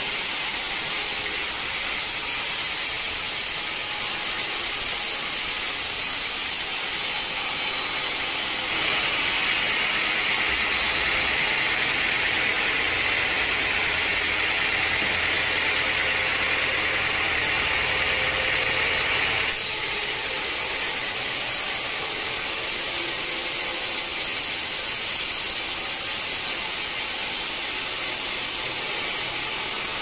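A band sawmill's blade running through a dry teak log, making a steady, hissing saw noise. About nine seconds in it turns louder and brighter for some ten seconds, then drops back to the earlier sound.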